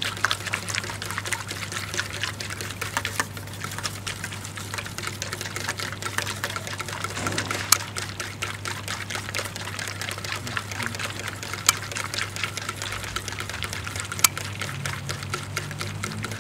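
Soapy foam fizzing and crackling as countless small bubbles pop: a dense, constant crackle with a few sharper single pops, over a steady low hum.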